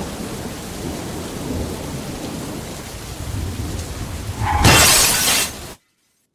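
Steady rumbling noise, like thunder with rain, then a loud rushing burst about four and a half seconds in that cuts off suddenly into silence.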